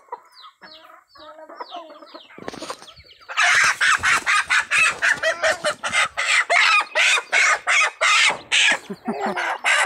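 Chicken squawking loudly in a rapid run of harsh calls, about three to four a second, starting about three seconds in after a few faint short chirps.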